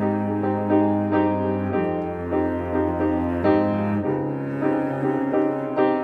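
Instrumental passage of a slow ballad: piano playing repeated chords over sustained low bass notes, the harmony changing about two seconds in and again near four seconds.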